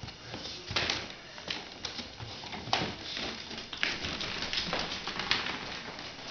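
Bull terrier playing with a ball on a wooden floor: irregular clicks, knocks and scuffles.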